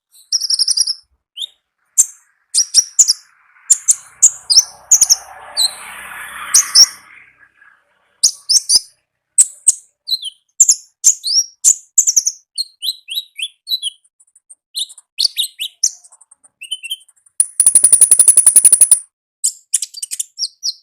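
Konin songbird singing in quick, high, sharp chirps and short whistled notes, with a loud, fast buzzy trill lasting a little over a second near the end. A soft hissing noise sits under the calls from about four to seven seconds in.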